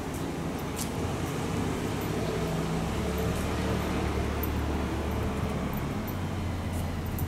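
Electric train's steady low hum and rumble, with a few faint high clicks.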